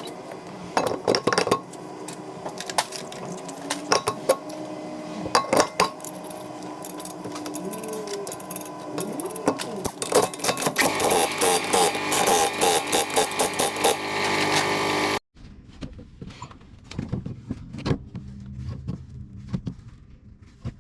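Metal clinking and clicking of hand tools and brake parts, with a faster run of even clicks about ten to fifteen seconds in. The sound drops off suddenly about fifteen seconds in, and quieter clatter follows.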